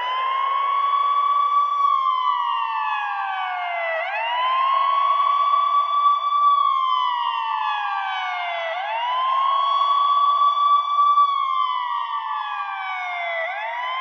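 Ambulance siren wailing: each cycle rises quickly to a high note, holds it for about two seconds, then slides slowly down before rising again, about every four and a half seconds.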